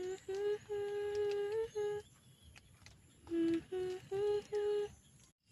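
A person humming a short tune in steady held notes: a group of notes including one long held note, a pause of about a second, then four shorter notes.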